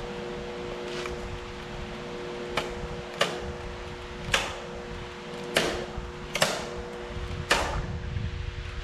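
Seven sharp knocks or snaps at uneven intervals, each ringing briefly, over a steady low two-note hum.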